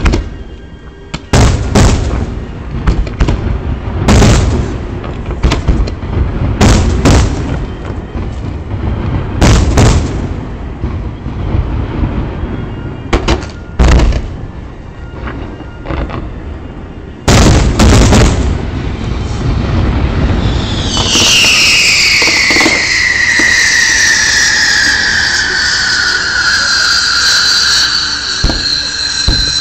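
Fireworks display: a rapid series of loud bangs and booms from aerial shells bursting over the first two-thirds. Then a long, high whistling squeal slides slowly down in pitch for the last eight seconds or so.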